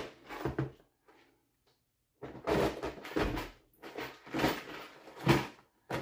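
Clear plastic parts-organizer trays of a Hart stackable toolbox being handled: a short plastic clatter as a tray is set back in its slot, a pause, then a run of plastic knocks and scrapes as the next tray is lifted and pulled out of its bin.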